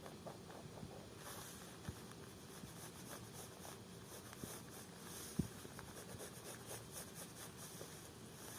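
Faint, rapid scratchy strokes of marking pattern lines on fabric, with a few soft knocks, the loudest about five seconds in.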